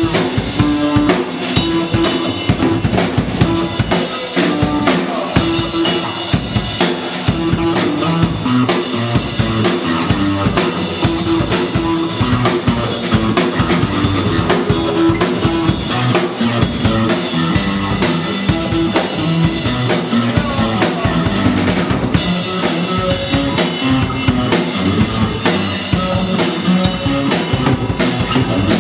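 Small rock band playing live: electric guitar, bass guitar and drum kit, with a steady beat.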